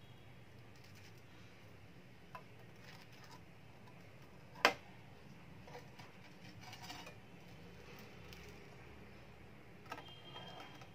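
Faint clicks and knocks of toasted sandwich halves being set down on a glazed ceramic plate with a plastic spatula, with one sharp knock about halfway through and a smaller click near the end. A low steady hum runs underneath.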